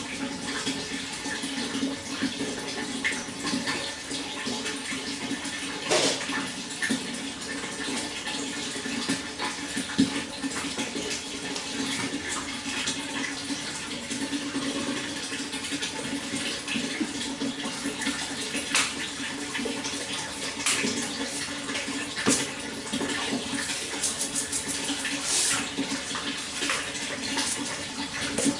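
Water flowing and splashing steadily, with frequent small splashes and drips throughout.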